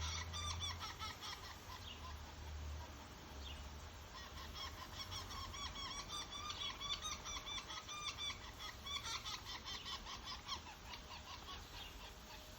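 Northern flicker calling in rapid runs of short repeated notes, about five or six a second, in three bouts.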